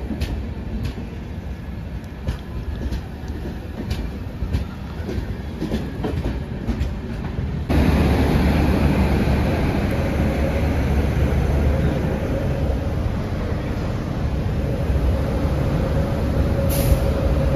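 Passenger coaches rolling past, their wheels clicking over rail joints in a regular beat. About eight seconds in it changes abruptly to a louder, steady rumble with a hum from a WAG-9H electric locomotive close by, and a short hiss near the end.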